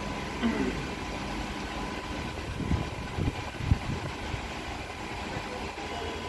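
Canon imagePROGRAF TM-5200 large-format printer initializing after power-on: a steady mechanical hum with a few low knocks and rumbles from its mechanism near the middle, the loudest a little before four seconds in.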